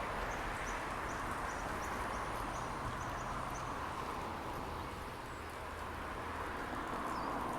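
Steady outdoor hum of road traffic. A bird repeats a short high chirp about three times a second through the first half.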